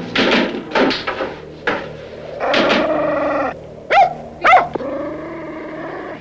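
Small long-haired dog barking in a run of short barks, then a longer drawn-out sound and two sharp high yelps about four seconds in.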